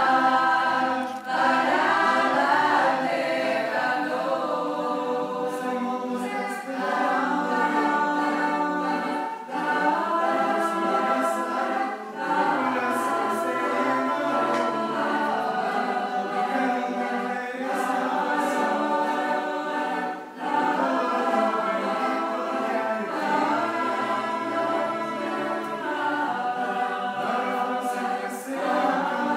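Mixed youth choir of boys and girls singing unaccompanied in several voice parts, in sustained phrases with short breaks between them.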